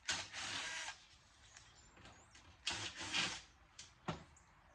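Sheet-steel electronics case being handled: two scraping, rattling bursts of metal noise, the first right at the start and the second about two and a half seconds in, then a sharp click a second later.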